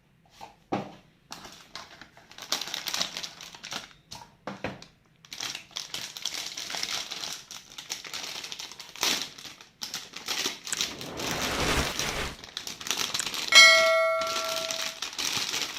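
Packaging crinkling and rustling as a sealed graphics card box is unpacked, with scattered clicks and handling knocks. About two seconds before the end, a brief ringing ding is the loudest sound.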